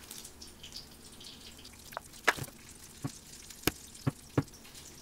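A kitchen knife cutting through a soft block of tofu and tapping down on a plastic cutting board: about six sharp, irregular taps, starting about two seconds in.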